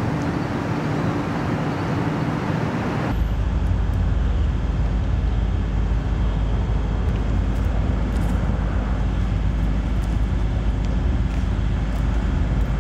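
Steady noise of road traffic crossing the highway bridge overhead, with a deep low rumble and a faint steady hum; the sound shifts abruptly about three seconds in.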